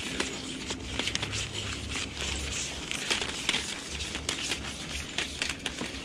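Flex shaft cable being pulled hand over hand out of a drain pipe: rubbing and scraping of the blue-sheathed cable through rubber-gloved hands and against the pipe, with many small clicks.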